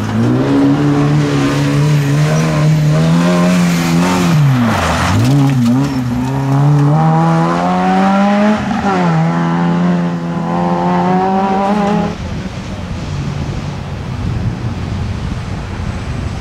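Rally car engine pulling hard along the stage, its pitch climbing and dropping sharply twice as the driver lifts or shifts. About three-quarters of the way through the engine cuts off suddenly, leaving a quieter steady rushing noise.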